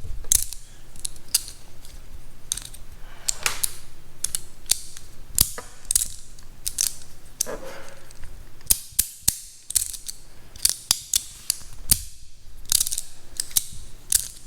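3D-printed magnetic fidget slider being slid back and forth, its plates snapping into place with sharp, irregular clicks, often several in quick succession, and short sliding scrapes between them.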